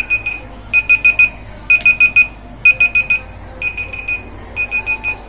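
Digital timer alarm beeping: groups of four quick, high beeps repeating about once a second, signalling that the two-minute time limit is up.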